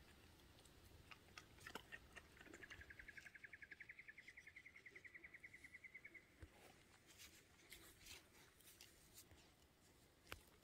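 Faint rapid trill from a small animal, about ten even pulses a second at one high pitch, rising slightly and lasting about four seconds, over near silence with scattered light clicks.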